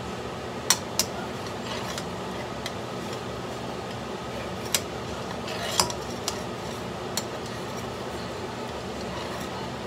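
Metal spoon stirring and scraping in a granite-coated wok, with a few sharp clinks where it strikes the pan, over a steady hiss.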